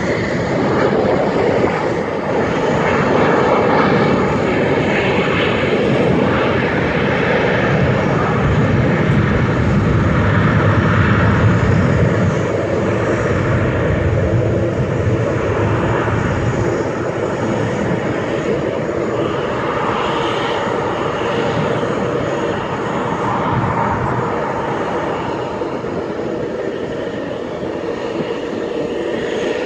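Jet airliner's engines running while it moves along the runway on the ground: a steady rumble with a hiss on top that swells about a third of the way in and eases toward the end.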